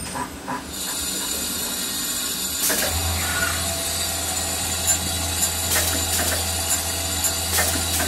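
Automatic ball diamond-cutting machine running a faceting cycle on a gold bead: a steady high hiss starts under a second in, a low motor hum joins about three seconds in, and scattered sharp clicks sound over both.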